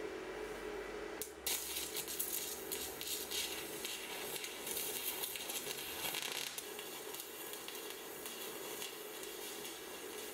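Handheld fibre laser cleaner ablating rust off a metal part, a dense crackling hiss that starts about a second and a half in, over a steady machine hum.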